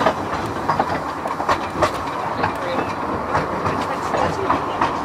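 Narrow-gauge steam train running, heard from the carriage just behind the locomotive: a steady running rumble with irregular clicks and clanks from the wheels over the track.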